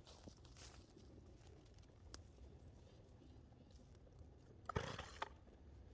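Near silence, broken by a few faint clicks and one brief scuffing noise about five seconds in.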